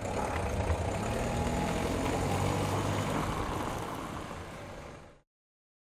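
A Citroën minivan's engine running as the car pulls away and drives off, fading gradually before the sound cuts off suddenly about five seconds in.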